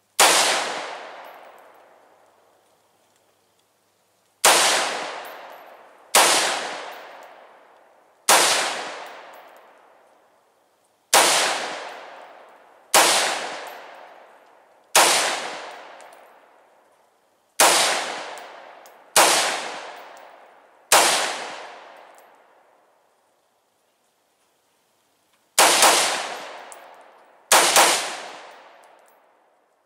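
A 5.56 AR-style rifle fitted with an 'Angry Pineapple' muzzle brake firing about fifteen loud shots, each followed by a long echo. Most come singly, a second and a half to three seconds apart; near the end there is a quick string of three and then a double.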